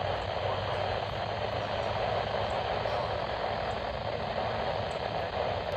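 Steady hiss of radio static from a weather radio receiver, with no voice on the channel.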